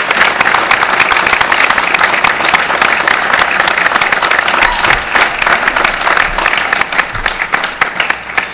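Audience applauding: many hands clapping together, thinning out and fading near the end.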